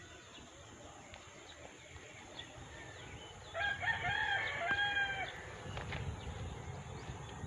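A rooster crowing once, about three and a half seconds in: a call of several joined notes ending in a longer held one, over a faint steady low rumble.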